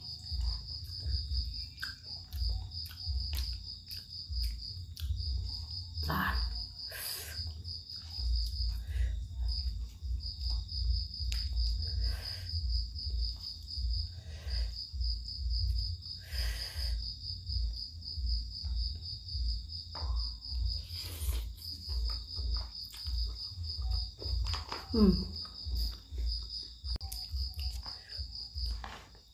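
Eating sounds from a bowl of laksa: chewing in soft rhythmic thuds a few times a second, with occasional slurps and spoon clicks. A steady, high, rapidly pulsing trill runs underneath, pausing briefly a few times.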